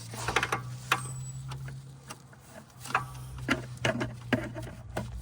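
Irregular metallic clicks and clinks of a ratchet on a long extension being fitted and worked on a differential fill plug, over a steady low hum.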